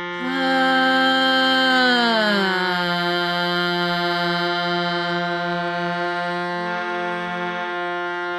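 A shruti box drones steadily on F while a woman sings a held tone on the C above. About two seconds in she slides down to lock onto the drone's F and sustains it with the drone.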